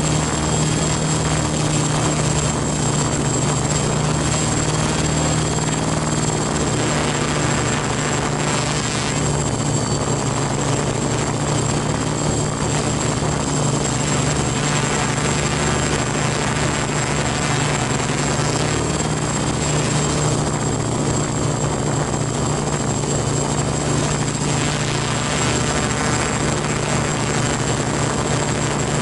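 F450 quadcopter's brushless motors and propellers running steadily in flight, heard from a camera strapped to the frame: a loud, even propeller hum with a thin, constant high whine above it.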